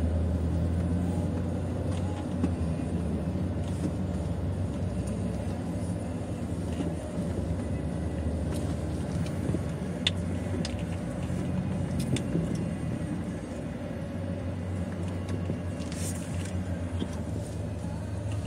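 Car cabin noise while driving: a steady low hum of engine and road, with a few faint clicks.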